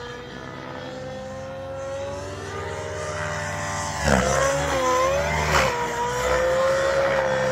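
Nitro RC helicopter's two-stroke glow engine and rotors running at high revs in flight. The sound gets much louder about halfway through as the helicopter comes close. The engine pitch dips and recovers briefly under load during a manoeuvre, then holds steady.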